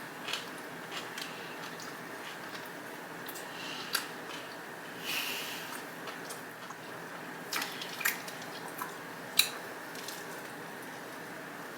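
Close-miked eating sounds of a sub sandwich loaded with crisp vegetables: wet, squishy chewing with scattered sharp crunchy clicks, the sharpest about nine seconds in.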